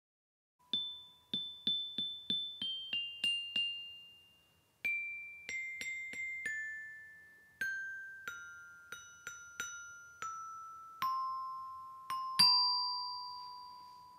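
Metallophone playing a slow melody of single struck notes, each ringing and fading. The tune starts with quick repeated notes and steps downward in pitch, ending on a loud low note that rings out.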